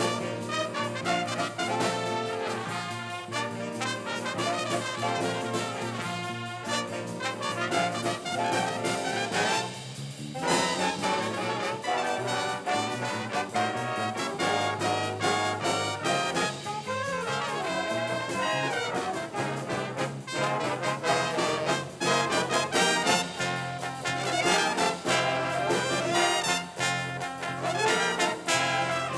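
School band playing a brass-led piece, with trumpets and trombones to the fore and a brief break in the music about ten seconds in.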